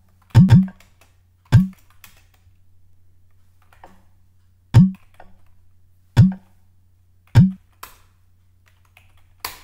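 Typing on a computer keyboard: faint key clicks with about seven heavy thuds spread through, the last a sharp click near the end, over a steady low hum.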